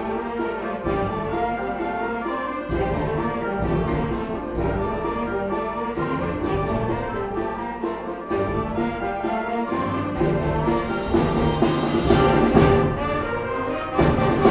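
Student concert band playing, with saxophones and brass, swelling louder toward the end and a loud percussive hit about half a second before the end.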